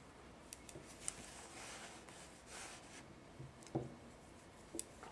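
Knitting needles clicking softly and yarn rubbing as stitches are worked, with a few light ticks and one duller knock near the end.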